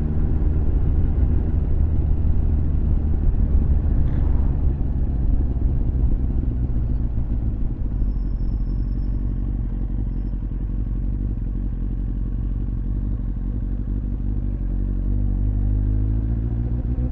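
Motorcycle engine running steadily under way. Its pitch rises in the last couple of seconds as the bike accelerates.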